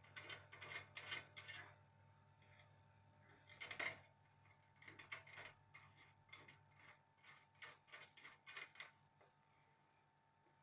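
Small metal clicks and taps from hand assembly of a mini CNC milling machine's spindle carriage on its aluminium T-slot bed, coming in short clusters with one louder knock about four seconds in.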